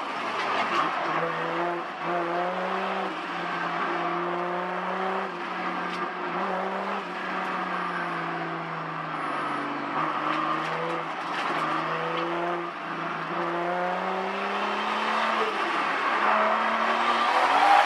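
Turbocharged 2JZ straight-six engine of a Toyota 86 running at moderate revs, heard from inside the cabin. Its pitch steps gently up and down, then rises and gets louder near the end as the throttle opens.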